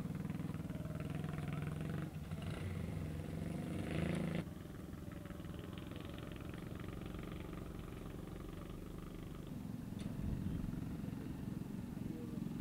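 Motorboat engine running steadily, its sound changing abruptly about four seconds in.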